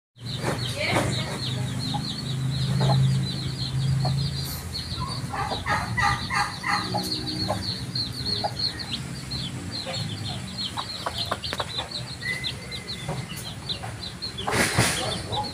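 Chicks peeping nonstop in quick, high, falling chirps while the mother hen clucks low among them. A short burst of rustling noise comes near the end.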